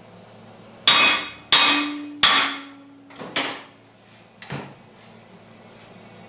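Hammer blows on a tack-welded steel piece to break the tack weld loose. Three hard strikes about two-thirds of a second apart, each ringing on, then two lighter ones.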